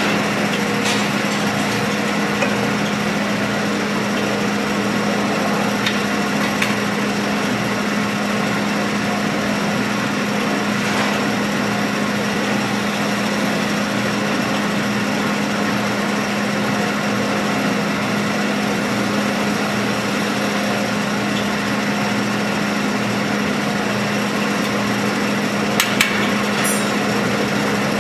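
Metal-spinning lathe running with a steady hum while a hand spinning tool is pressed against the revolving sheet-metal dome, scraping on the metal. A few sharp clicks come through, the loudest about two seconds before the end.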